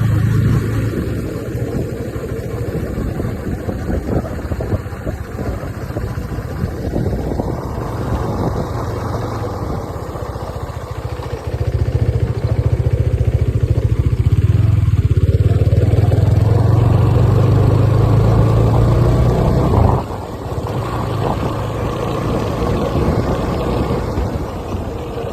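A vehicle engine running steadily. It gets louder about halfway through, holds there for several seconds, then drops back suddenly.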